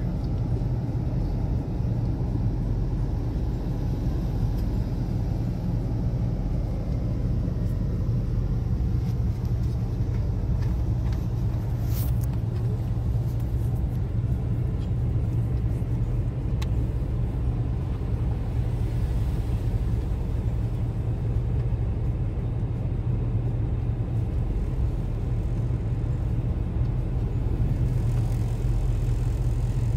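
Steady low rumble of a car's engine and road noise heard inside the cabin while driving, with a single brief click about twelve seconds in.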